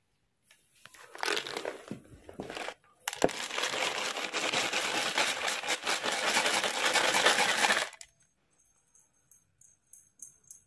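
Loud rustling and rattling: a short burst, then a sharp click about three seconds in, followed by about five seconds of steady rustling that stops abruptly, leaving a few faint ticks.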